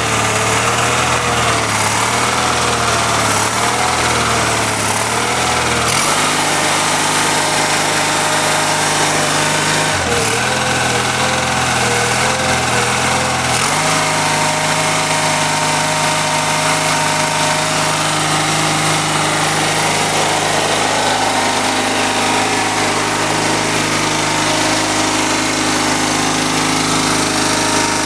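Onan CCKA twin-cylinder air-cooled engine of a Case 646 compact tractor running. Its speed steps up about six seconds in, dips back down around ten seconds, and rises again around fourteen seconds, then holds steady.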